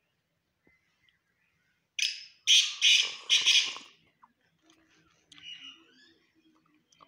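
Black francolin (kala teetar) calling: a harsh, grating phrase of four loud notes over about two seconds, followed by a few faint chirps.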